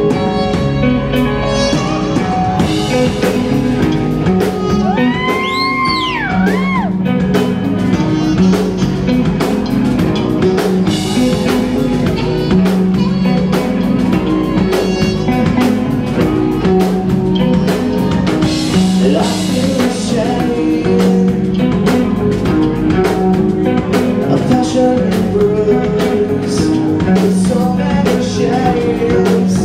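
Live rock band playing loudly: electric guitar, bass, drum kit and saxophone, with a singer's voice over them.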